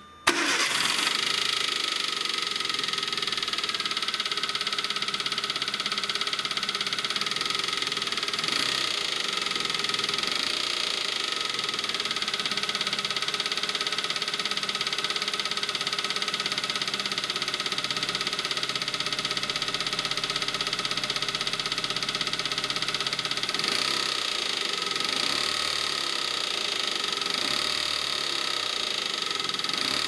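Daewoo Matiz's four-cylinder engine cranking and catching right at the start, then idling steadily. The owner is chasing a clunking noise that began after the car overturned in an accident.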